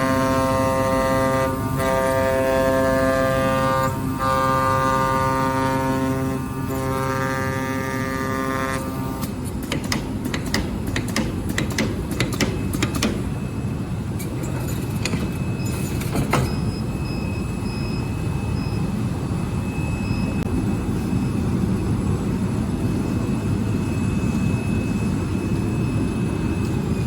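CNC vibrating knife cutting machine running. A steady buzzing hum with short dips at first, then a steady broad machine noise with a run of sharp clicks and a faint high whine.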